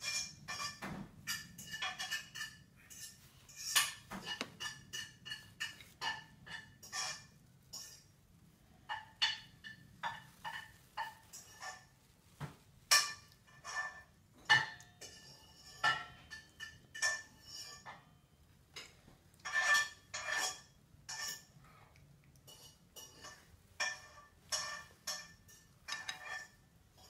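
Plastic spoon tapping and scraping against a bowl in irregular knocks, one every half second to a second, each with a short ringing after it.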